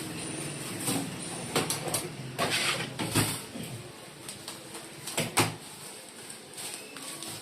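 Oven accessories being unpacked from their packaging: a run of rustles and sharp knocks, busiest in the first half and loudest a little over three seconds and about five seconds in, then quieter handling.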